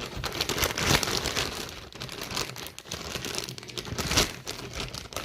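Slime being squeezed and pulled apart by hand, a dense crackling with many small pops and a couple of louder snaps.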